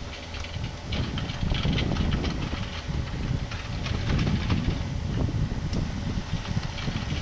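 Yanmar ViO57 mini excavator's diesel engine running under load as it digs, with scattered clicks and rattles of the bucket working stones and gravel.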